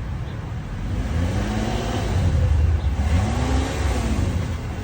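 Car engine revved a few times with a stock exhaust and no turbo-whistle simulator fitted, each rev rising and falling in pitch over a steady low rumble.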